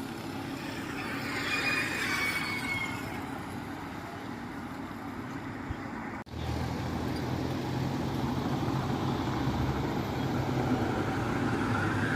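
Road traffic: a vehicle passes in the first few seconds with a falling whine, and after a brief dropout about six seconds in a steady low engine drone carries on.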